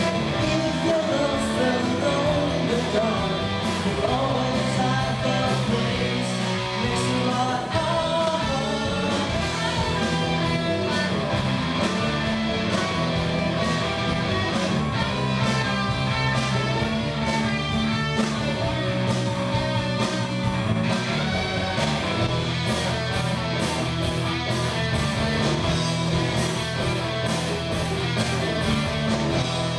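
Live rock band playing a song: electric guitars and a drum kit, with a male lead singer.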